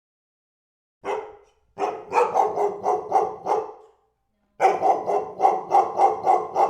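A dog barking: one bark about a second in, then two quick runs of about eight barks each, roughly four a second, with a short pause between the runs.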